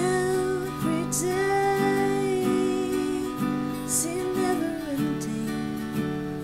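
Strummed acoustic guitar accompanying a solo singing voice that holds long, sliding notes, the voice dropping out about five seconds in.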